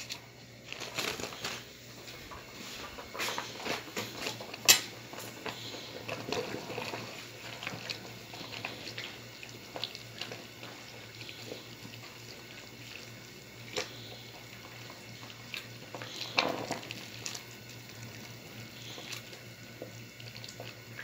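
Pieces of flatbread being worked into a metal pot of broth: soft wet stirring with scattered clicks and clinks of a spoon against the pot, the sharpest about five seconds in. A low steady hum runs underneath.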